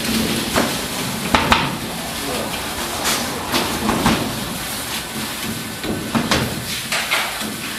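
Bakery work noise: knocks and clatter of metal baking trays and bread rings being laid down, over a steady rushing hiss, with a few sharp knocks about a second and a half in and again later.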